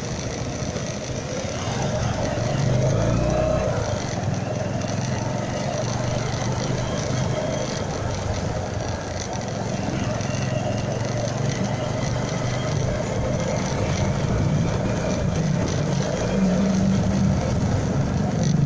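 Motorcycle engine running steadily at low road speed, with road and wind noise, picked up by a phone mounted on the bike.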